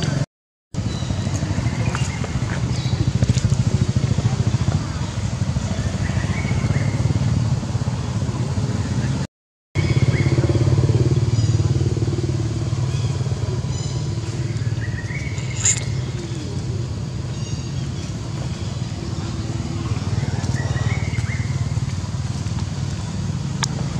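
Steady low engine rumble throughout, with short high chirps now and then. The sound cuts out completely twice, briefly.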